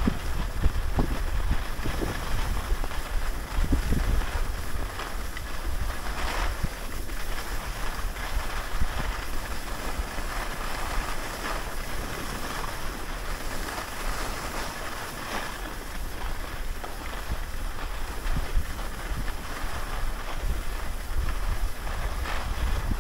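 Wind buffeting the microphone on a descent down a groomed ski slope, over a steady hiss of sliding on packed snow, with a few brief louder scrapes.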